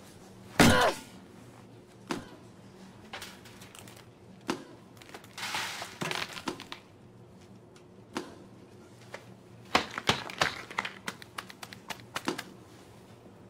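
A loud thud about a second in, then scattered knocks, clatter and crinkling as plastic mustard tubes are pulled from a shelf and dropped onto a hard floor, with a busier run of knocks near the end.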